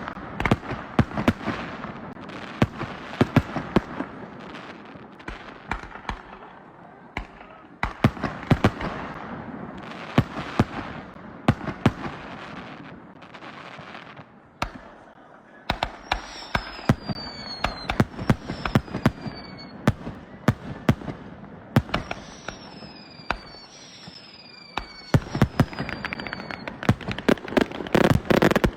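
Fireworks display: aerial shells bursting in a fast, uneven string of bangs with crackle between them. In the second half come several short whistles falling in pitch, and near the end a dense volley of bursts.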